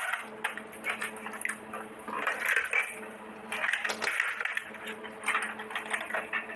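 Miniature toy kitchen pieces and their packaging being handled close to the microphone: a run of small clicks, taps and crinkles.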